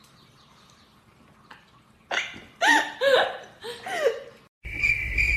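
A pet animal calling four times in quick succession, short pitched calls that bend up and down in pitch. Near the end a steady high tone over a low hum starts abruptly.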